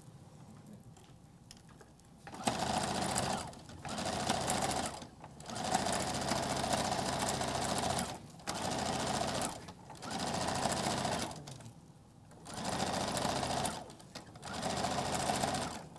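Electric household sewing machine stitching through fabric in a series of short runs, starting and stopping about every one to three seconds after a quiet first two seconds.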